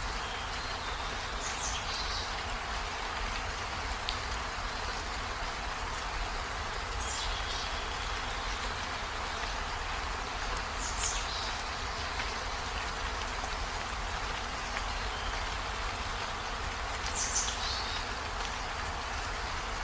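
Steady rain falling, an even hiss, over a constant low rumble. A few brief high chirps stand out about four times.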